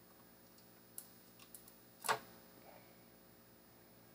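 A few small handling clicks and taps, then one sharper click about two seconds in, as the fan capacitor's wire leads are pulled out of the outlet after charging.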